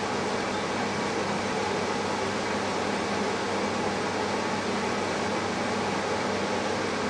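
Variable-speed blower running steadily at full speed: a constant rush of air over a low, steady hum.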